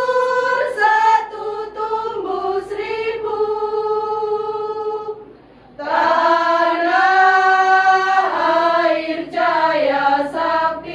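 Women's choir singing unaccompanied, holding long notes through each phrase, with a short break about five seconds in before the next phrase starts.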